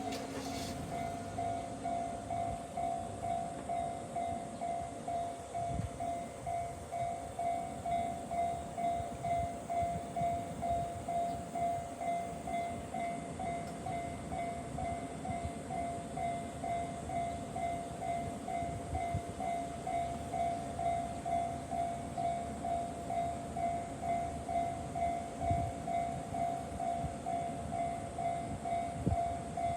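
Japanese railroad crossing warning bell ringing steadily, about two strokes a second.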